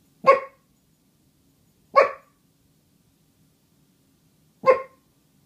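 A dog barking three times, single short barks spaced a couple of seconds apart.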